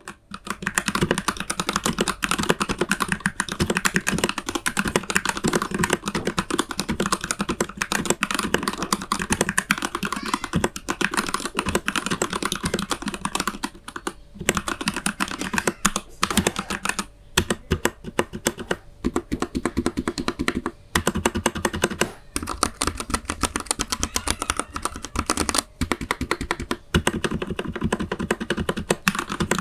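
Keychron K8 mechanical keyboard with Gateron Red linear switches being typed on fast and continuously: a dense stream of key clacks, broken by a few short pauses. The switches sound fairly noisy for 'quiet' reds.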